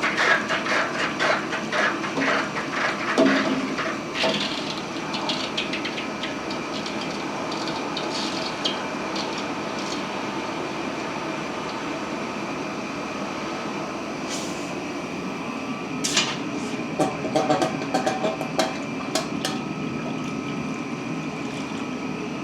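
Steady running noise of the homemade gas forge and quench-tank recirculating pump, with bursts of rapid clicks and crackles about the first four seconds and again about three quarters of the way through as the hot 1045 steel balls are handled and quenched.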